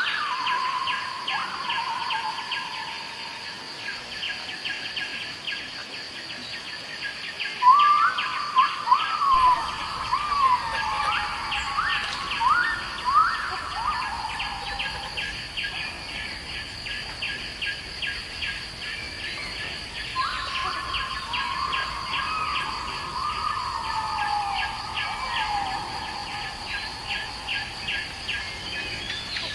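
Birds calling in two bouts of overlapping calls, each falling in pitch, over a steady, fast-pulsing insect trill. The loudest calls come in the first bout, about a third of the way in.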